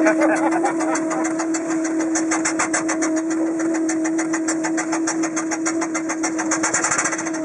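1909 Stanley Steamer Model R's locomotive-style steam engine chuffing rapidly and evenly as the car drives along, about seven exhaust beats a second, over a steady hum.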